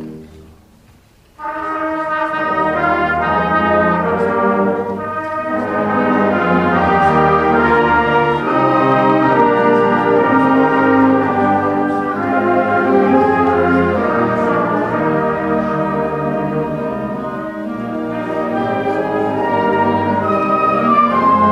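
Middle school symphonic band playing. The music drops away into a brief pause, then the full band comes in loudly about a second and a half in, with brass to the fore.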